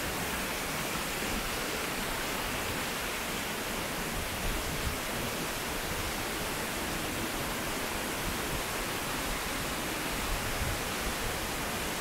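Steady, even rush of a waterfall and its cascading stream.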